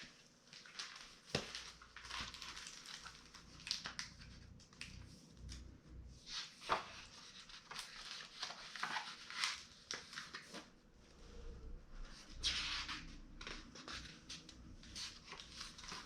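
Quiet, irregular paper rustling and crinkling with soft clicks and knocks: a hardcover picture book being handled and its pages turned.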